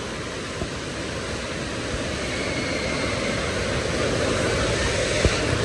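Water rushing down an enclosed water slide tube as a rider slides through it: a steady rush that grows slightly louder through the ride, with one sharp knock about five seconds in.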